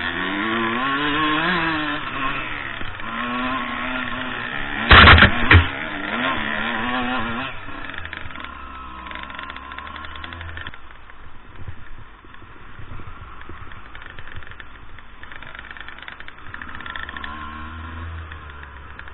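Two-stroke dirt bike engine being ridden, revs rising and falling for the first seven seconds or so, then running lower and quieter for the rest. Two loud knocks about five seconds in are the loudest sounds.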